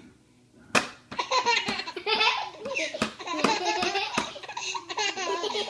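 Baby laughing hard in repeated high-pitched belly-laugh bursts, starting about a second in and running on almost without a break. A few sharp knocks come through, one just before the laughter starts and two more in the middle.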